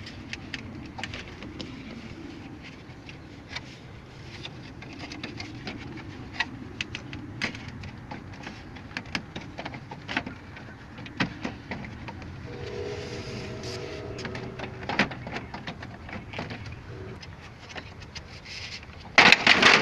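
The plastic front grille of a 2016 Toyota Tacoma is being pulled loose by hand: scattered clicks and knocks of plastic trim and retaining clips, with a short squeak about two-thirds through. There is a louder clatter near the end as the grille pops free of its clips.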